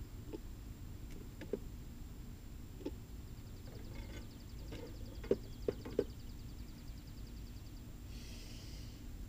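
Scattered light clicks and knocks on a Flow Hive's wooden box, a faint rapid ticking in the middle, then a short scrape about eight seconds in as the metal Flow key slides into the key slot of the Flow frame.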